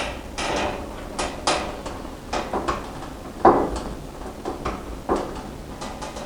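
Irregular clicks, knocks and scrapes of a rubber gas hose being worked onto a heater's gas connection and a Jubilee hose clip being tightened, with one louder knock about three and a half seconds in.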